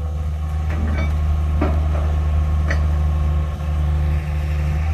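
Large diesel engine of heavy construction machinery running steadily with a deep, even hum, and a few faint clicks over it.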